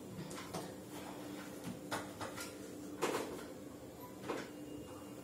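A textbook being handled and its pages turned: a handful of short, sharp rustles and knocks, the loudest about three seconds in, over a faint steady hum.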